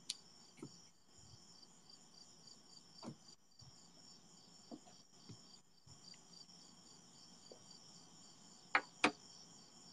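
Faint, steady, rhythmic chirping of crickets, with a few soft knocks and taps, two louder ones near the end.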